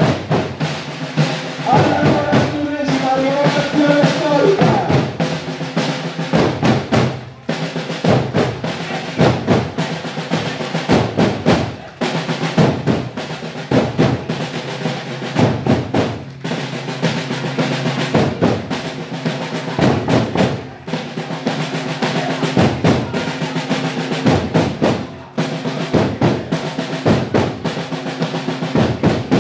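Snare and bass drums of a historical pageant's drum corps playing a marching cadence, with steady repeated beats.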